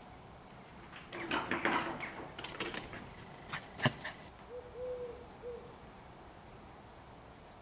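A dove cooing softly, three notes with the middle one longest, about halfway through. Before it there is a stretch of rustling and one sharp click.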